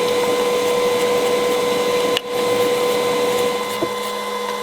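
Steady whirring drone of a small appliance motor with a fixed pitched hum. It drops out for an instant about two seconds in and settles to a lower hum near the end, with a faint click.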